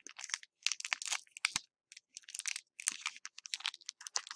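Foil booster pack wrapper crinkling as it is handled, in irregular rustling bursts with a short pause about two seconds in.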